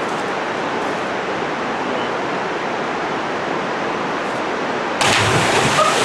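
Steady rush of river water, then about five seconds in a sudden loud splash as a person jumps feet-first into a deep pool.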